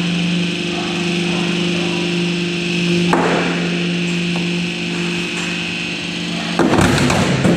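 Hydraulic drum-cutting machine at work: its pump motor hums steadily while the blade presses down into a blue plastic drum. About three seconds in, a rough cutting noise joins the hum, and near the end it turns into a louder burst of rough noise as the blade goes through the drum.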